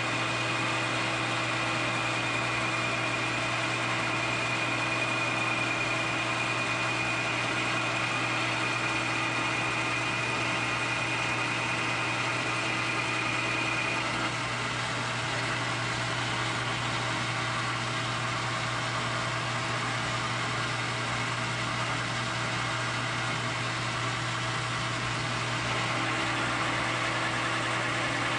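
Metal lathe running steadily with a low hum while a carbide insert takes a turning cut along a spinning Delrin shaft. A thin high tone sounds through the first half and stops about halfway, where the sound becomes slightly quieter.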